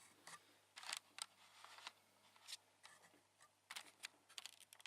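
Light clicks, taps and brief scrapes of computer parts being handled and set down on a plastic table, with a quick run of small clicks near the end.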